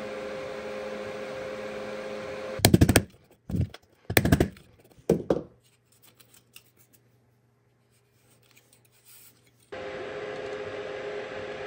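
Anycubic 3D printer running with a steady hum. A few seconds in come several loud, sharp clattering knocks from rigid plastic parts being handled, then a few seconds of near silence before the printer hum comes back near the end.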